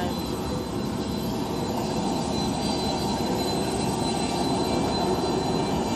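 Aircraft jet engine running steadily: an even rush of noise with a faint high whine.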